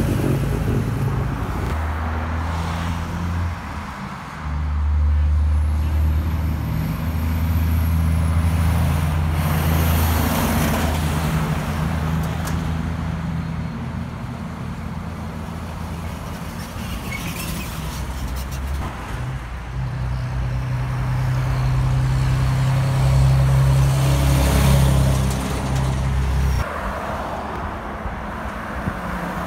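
Heavy diesel vehicles passing on a highway one after another, a large farm tractor and trucks among them, with tyre noise. Each engine's steady low drone rises and fades as it goes by, with two main passes about two seconds in and again later, the second cutting off fairly suddenly near the end.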